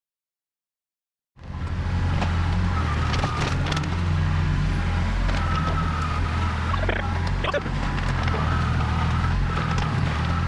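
After about a second and a half of silence, the diesel engine of a compact excavator or backhoe cuts in abruptly and runs steadily under load, with a steady whine above it and scattered sharp clanks and knocks.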